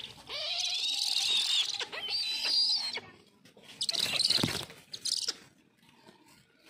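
Brahminy kites (red-backed sea eagles) giving thin, wavering, high-pitched squealing calls in two drawn-out phrases as they fight over food. About four seconds in comes a loud rush of flapping wings, with a shorter burst a second later.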